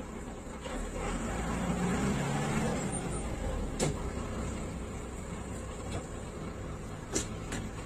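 Inside a city bus: the engine running with a steady rumble and cabin noise. There are two sharp knocks or rattles, one about four seconds in and another near the end.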